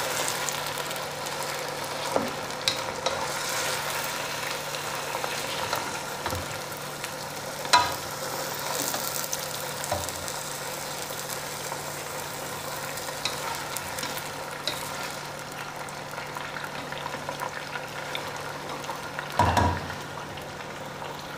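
Chicken pieces and fried onions sizzling in hot oil in a nonstick pot while a wooden spatula stirs them, browning the chicken (bhunai) for a biryani korma. A few sharp knocks of the spatula against the pot stand out, the sharpest about eight seconds in.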